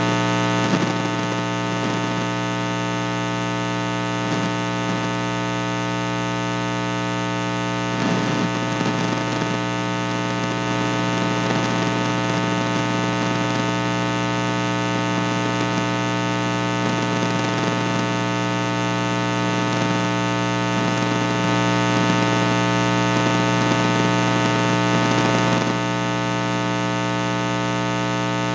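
Loud, steady electrical mains hum with many overtones, an unchanging buzz on the recording line, with faint indistinct sounds beneath it.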